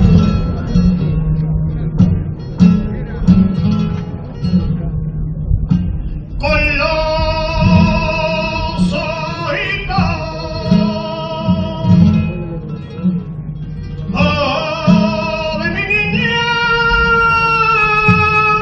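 Flamenco cante por seguiriyas: a male cantaor sings long, wavering melismatic lines over a flamenco guitar. The first six seconds or so are guitar alone; the voice comes in about six seconds in, breaks off about twelve seconds in, and comes back about fourteen seconds in.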